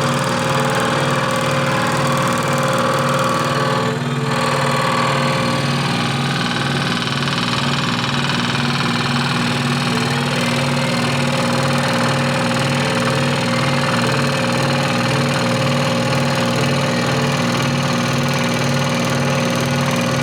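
Scroll saw running steadily, its blade cutting wood with a fast, even buzzing pulse over the motor's hum.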